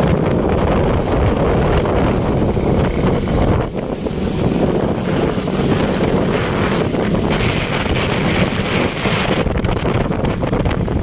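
Wind rushing over the microphone on a moving motorcycle, a steady loud rumble with the motorcycle's engine and road noise beneath it.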